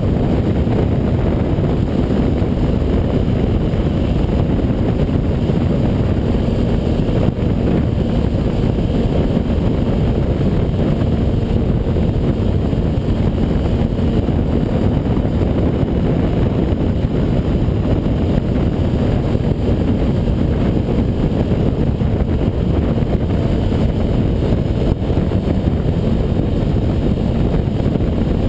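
Wind rushing and buffeting over the microphone at highway speed, with a Kawasaki Ninja ZX-6R's inline-four engine running at a steady cruise underneath. The sound is a dense, even low rush with no changes.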